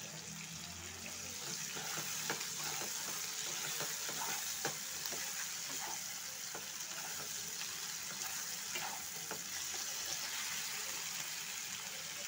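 Chopped onions, tomatoes and green chillies sizzling in hot oil in a pan, stirred with a wooden spatula that knocks and scrapes against the pan now and then.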